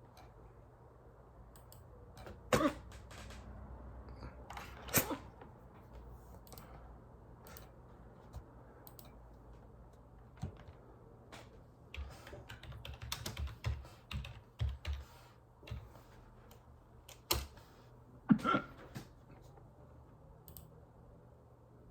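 A person hiccuping: sharp, sudden hiccups about two and a half and five seconds in, then two more close together near the end. Faint clicks and a run of low bumps fall in between.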